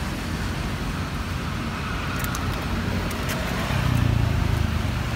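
Roadside traffic: a steady rumble of passing vehicles, with an engine hum swelling about four seconds in as a vehicle comes close. A few light clicks are heard near the middle.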